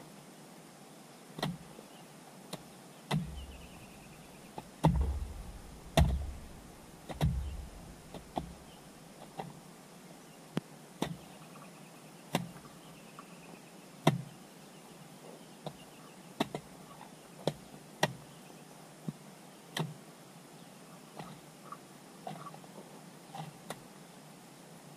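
A hand tool striking again and again, roughly one blow every second to second and a half. Each blow is a sharp knock with a dull thud under it, and the heaviest blows come a few seconds in.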